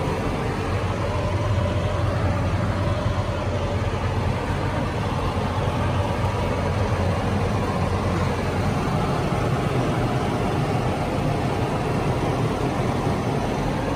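New Holland tractor's diesel engine idling with a steady low hum, heard from inside the closed cab.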